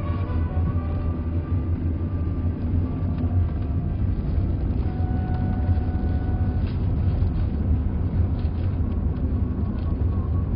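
Steady low rumble of a car's engine and tyres heard from inside the cabin while driving along a city street.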